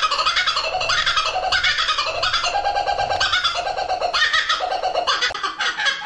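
Laughing kookaburra giving its laughing call: a long, unbroken run of rapid, loud, repeated cackling notes.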